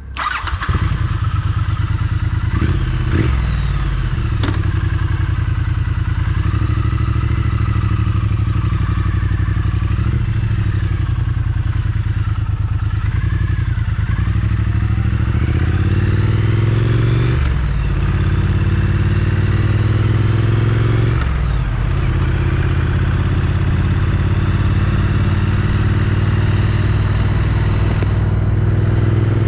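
Triumph Street Twin's 900 cc parallel-twin engine through its stock exhaust, pulling away and accelerating. The pitch climbs and drops back several times as it shifts up through the gears.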